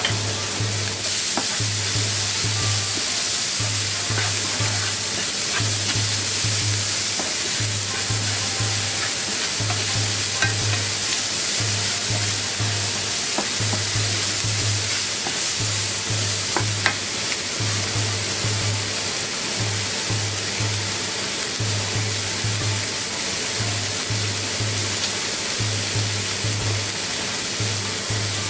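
Chopped onions sizzling steadily as they fry in a nonstick frying pan, with a wooden spatula stirring and scraping now and then. Under the sizzle a low beat pulses in pairs about every second and a half.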